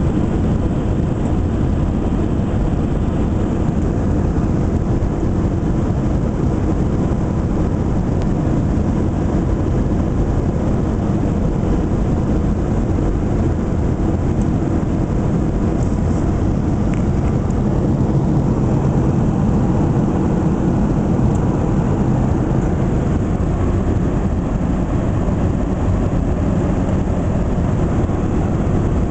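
Steady cabin noise inside a Boeing 737-800 airliner: the even roar of its CFM56 jet engines and airflow, heaviest in the low end.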